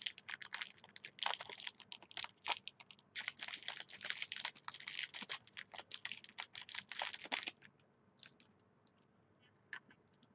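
Protein bar wrapper being opened and handled, a dense run of crinkling and crackling for about seven seconds, then a few scattered crackles.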